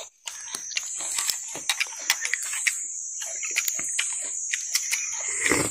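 Scattered light clicks and handling noises over a steady high-pitched buzz.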